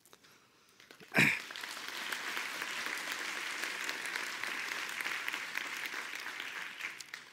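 A large audience applauding, a dense steady clapping that starts about a second in, right after a short loud burst, and fades near the end.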